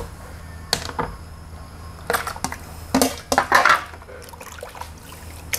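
Raw chicken breasts going into a plastic basin of water and being squeezed and rubbed by hand, with irregular splashes and sloshing.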